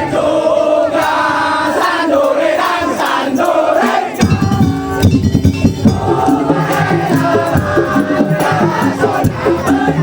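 Madurese daul music. For about four seconds a wavering melody plays with no drums under it. Then the full percussion section of drums and clattering percussion comes in and keeps a steady beat under the melody.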